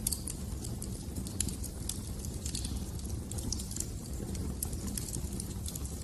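Wood fire crackling in a fireplace: irregular sharp snaps and pops, several a second, over a low steady rumble of the flames.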